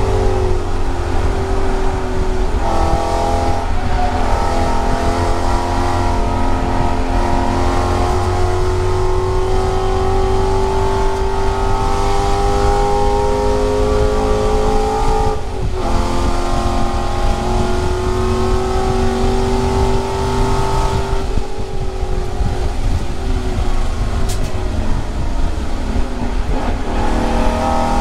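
Stinger Motorsport Mustang race car's engine pulling hard, heard from inside the cockpit. Its note climbs slowly through long runs, with short breaks about 3, 15 and 21 seconds in, over a constant heavy low rumble.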